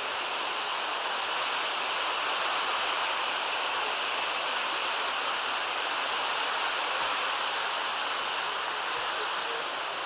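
Steady rush of falling water from a mountain stream's cascade of waterfalls, an even hiss that holds at one level throughout.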